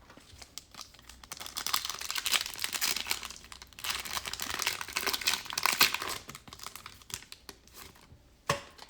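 Plastic wrapper of a basketball trading card pack crinkling and tearing as it is ripped open by hand, in two stretches of crackling with a short pause between.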